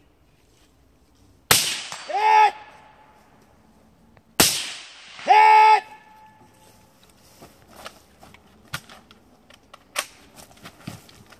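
Two rifle shots from a 10.5-inch 5.56 short-barrelled rifle, about three seconds apart, each answered just under a second later by the ring of a hit on a distant steel target. Lighter clicks and knocks follow near the end as the shooter moves.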